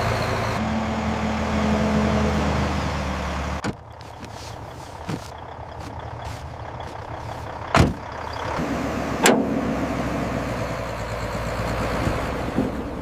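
A heavy vehicle's engine running steadily, cut off abruptly a little under four seconds in. Then a rushing noise with two sharp, loud knocks near the middle.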